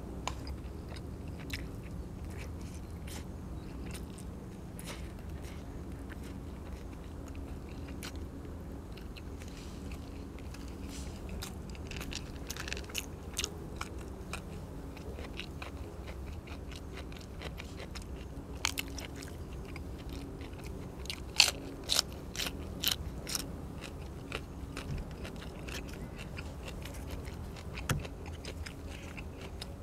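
A person chewing and biting food close to the microphone, with wet chewing and crunches broken by sharp clicks. The clicks come thickest and loudest about two-thirds of the way through, over a steady low hum.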